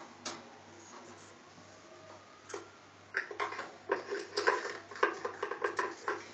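Peach-faced lovebird pecking and knocking its beak against a hollow plastic container: a few single taps, then from about halfway through a rapid, irregular run of sharp knocks.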